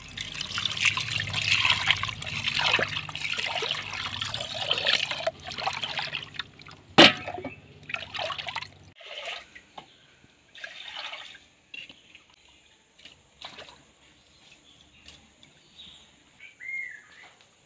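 Water poured over sardines in a clay pot and sloshed and swirled by hand as they are washed, splashing and trickling. There is one sharp knock about seven seconds in. The washing stops about nine seconds in, leaving only a few faint sloshes and drips.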